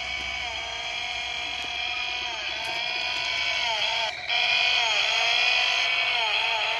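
Toy Stihl chainsaw's electronic engine sound playing from its small speaker: a buzzy drone that dips in pitch again and again, like a saw revving, briefly cutting out about four seconds in and coming back slightly louder.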